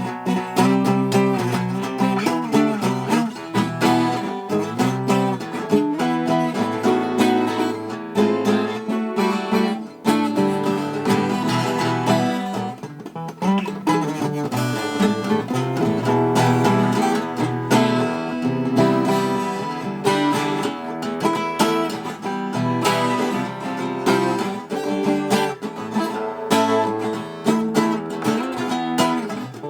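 Music on a plucked string instrument, notes picked in quick succession without a break.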